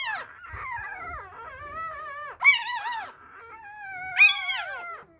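Newborn Labrador puppy crying: a run of high cries one after another, each rising then falling in pitch, the loudest about two and a half and four seconds in.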